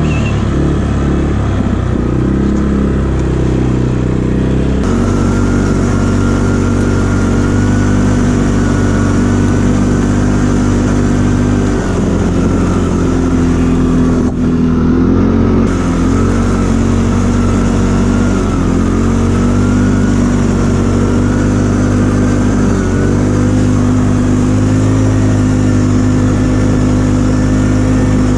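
ATV engine running steadily, its pitch rising and falling a little.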